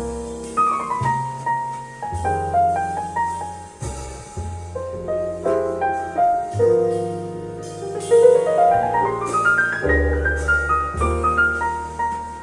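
Instrumental piano break in a slow vocal jazz ballad, played back over KEF Q300 loudspeakers, with sustained low bass notes underneath. Two rising piano runs come about two-thirds of the way through.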